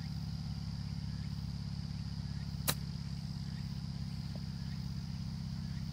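A golf wedge striking a ball off short grass on an approach shot: one sharp click about two and a half seconds in, over a steady low hum.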